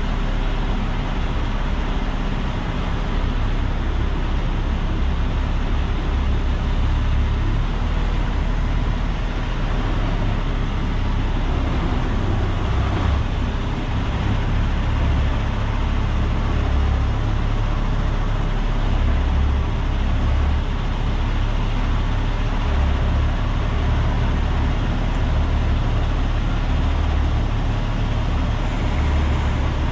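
Semi truck's diesel engine running as the truck creeps along at low speed, a steady low drone heard from inside the cab.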